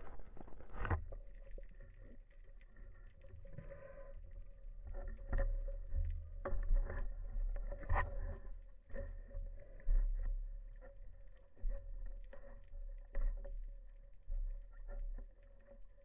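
Underwater sound heard through a speargun-mounted camera's housing: a low rumble of water moving past, with many scattered clicks and knocks and a faint steady hum throughout.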